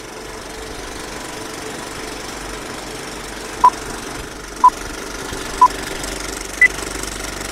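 Old film projector running with a steady clatter and hiss under a film-leader countdown. Four short beeps mark the seconds, about a second apart: the first three share one pitch and the last is higher.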